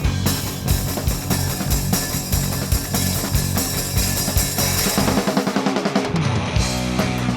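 Instrumental rock band playing with drum kit, bass and guitar, drums driving a steady beat. About five seconds in the bass and kick drop out for a moment, then the full band comes back in.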